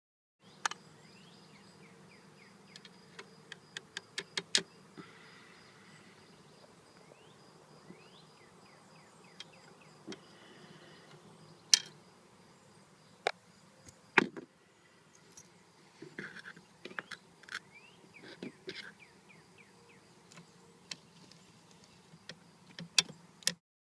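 Scattered sharp clicks and knocks, some in quick runs, the loudest about halfway through, over a faint steady hum.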